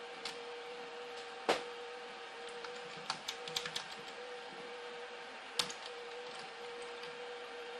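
Sharp clicks of a computer's input devices: a single loud click about a second and a half in, a quick run of several between three and four seconds, and another near six seconds, over a steady electrical hum with a faint whine.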